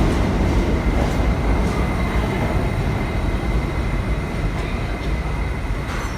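R179 subway train running in the station, a loud steady rumble with a high whine over it, slowly easing off.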